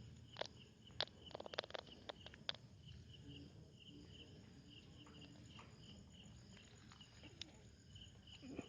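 Faint, evenly repeated high chirping of an insect such as a cricket, with a handful of sharp clicks in the first couple of seconds.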